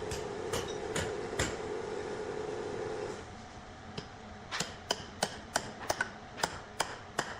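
A steady mechanical hum with a few sharp knocks over it; the hum stops about three seconds in. After a short pause comes a quick, uneven run of sharp knocks or taps.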